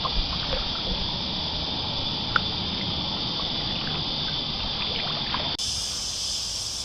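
Steady drone of a cicada chorus in the creekside trees, with faint water drips and lapping around the kayak. A little over five seconds in the drone shifts abruptly to a higher, brighter pitch.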